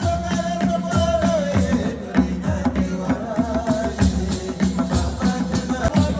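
Traditional Rwandan music played live for dancers: drums beating a steady rhythm under a wavering sung melody, with shaken rattles or bells.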